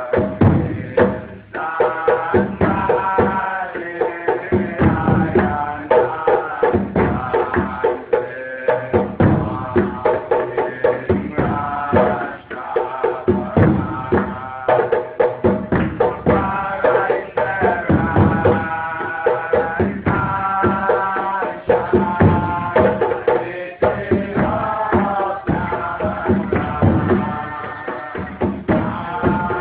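Rastafarian Nyabinghi-style chanting: voices singing together over a steady beat of hand drums.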